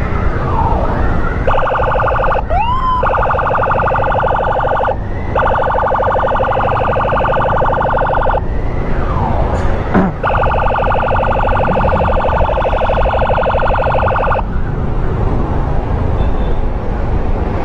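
Electronic emergency siren sounding a rapid pulsing warble, broken by a quick rising whoop a couple of seconds in and a falling sweep about halfway, then cutting off a few seconds before the end. Wind and motorcycle engine rumble run underneath.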